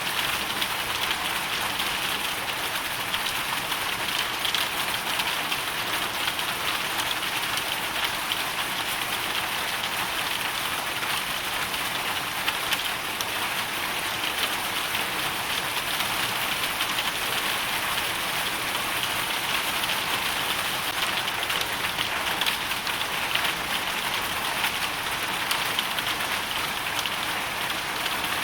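Hail falling steadily, a dense, even stream of tiny hits with no letup.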